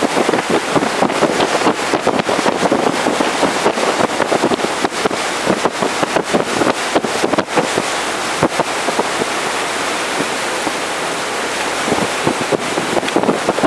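Wind buffeting the microphone in irregular gusts over the rush of water along the hull of a moving tour boat.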